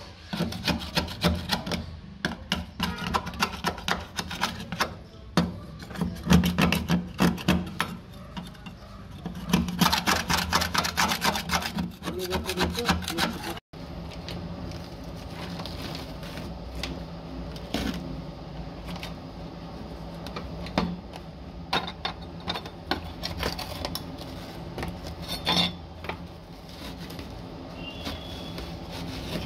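Dense, irregular scratching, scraping and clicking as rotted floor insulation and dirt are picked and scraped by hand off a rusty sheet-metal floor pan of a Toyota Land Cruiser 60. The sound drops out briefly about halfway through, then carries on quieter with sparser scrapes.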